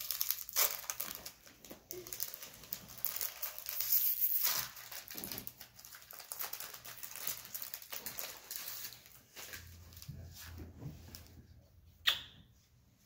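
Foil wrapper of a Magic: The Gathering booster pack being torn open and crinkled by hand, an irregular crackle that fades after about eight seconds. A single sharp click comes near the end.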